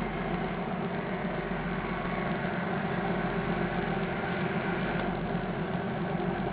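An engine running steadily at an even speed, a continuous low drone with no change in pitch or level.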